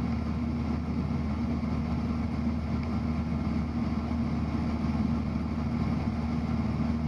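Cessna 172's piston engine and propeller droning steadily inside the cabin, held at unchanged power as the plane rolls into a steep left turn.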